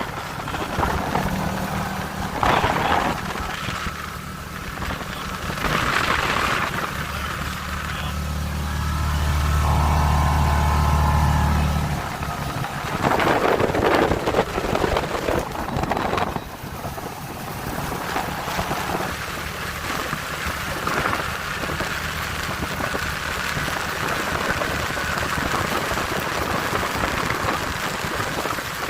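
ATV engine running steadily, louder from about nine seconds in and dropping away suddenly around twelve seconds, under wind noise on the microphone and several rough bumps from the ride.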